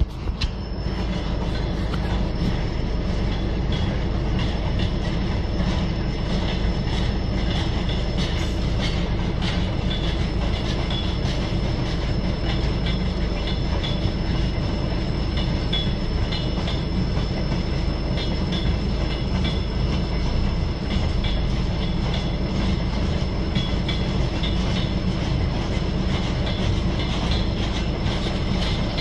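Freight train of flatcars rolling past on the rails, a steady loud rumble of wagons and wheels with intermittent high-pitched wheel squeal.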